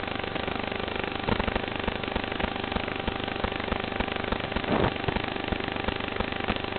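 FPV racing quadcopter's brushless motors and propellers buzzing steadily in flight, heard through the drone's own thin, crackly audio feed. A brief louder surge comes about two-thirds of the way through.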